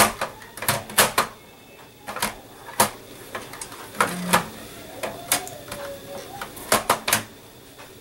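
Irregular sharp clicks and knocks as a Dell desktop power supply unit is shifted and pushed against the metal computer case, being worked into place until it locks in.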